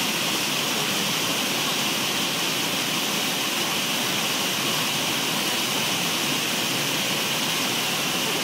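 Waterfall: water falling and rushing in a steady, unbroken hiss, strongest in the upper middle range.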